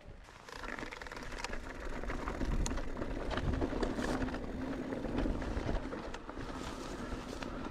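Mountain bike riding a trail: tyre rumble and bike rattle with scattered sharp clicks, picking up after the first half-second.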